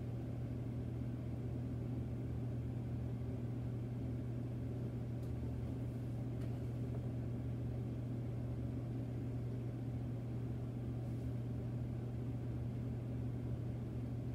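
A steady, unchanging low hum, like an appliance or electrical hum, with nothing else happening.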